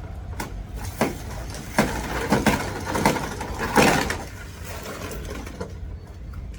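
Clattering and knocks of kitchen things being handled and moved during cleaning: a run of sharp hits and short scraping clatters that stop about four seconds in.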